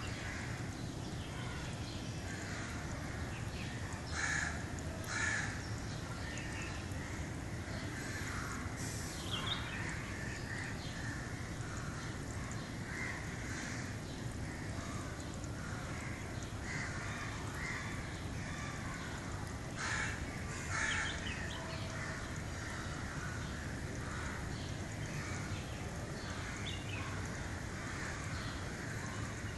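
Birds calling now and then, with short calls scattered through and louder calls coming in pairs, once near the start and again past the middle, over a steady low background noise.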